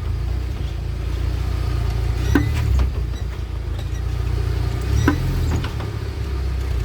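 UAZ Patriot running with the drivetrain turning, and a sharp click from the drive axle about every two and a half seconds, twice here: the axle knock being chased.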